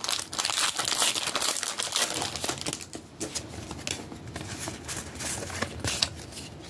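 Foil wrapper of a Pokémon TCG booster pack crinkling as it is handled and opened: a dense crackle for the first three seconds, thinning to scattered crinkles after.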